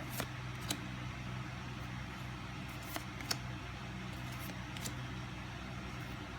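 Trading cards being handled and flipped through, giving a few brief, sharp clicks and rustles over a steady low background hum.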